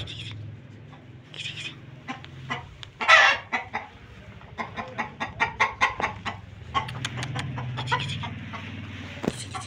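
Chickens clucking in a run of short, quick calls, with one louder call about three seconds in.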